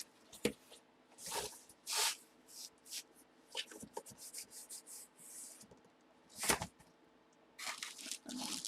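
Seal on a sealed trading-card box being torn open and the packaging handled: a series of short tearing and crinkling sounds, with a louder rip about six and a half seconds in.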